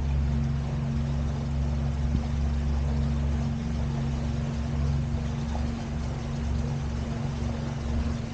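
Small electric boat under way: a steady low hum, with a low rumble that swells and fades.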